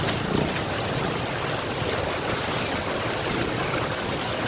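Floodwater running over a road, a steady rushing noise.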